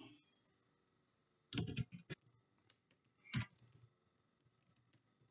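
Typing on a computer keyboard: a quick run of keystrokes about a second and a half in and another short run a couple of seconds later, with a few faint clicks between.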